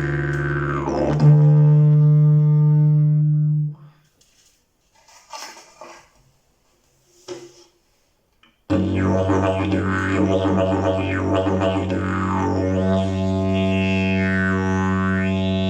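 Fiberglass slide didgeridoo playing a steady drone with sweeping vowel-like overtones. It moves to a higher note about a second in and breaks off near 4 s. After a few seconds of faint sounds, it comes back on a lower drone with swooping overtones.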